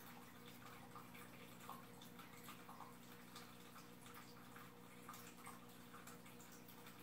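Faint aquarium filter sound: a low steady hum with small irregular drips and trickles of water.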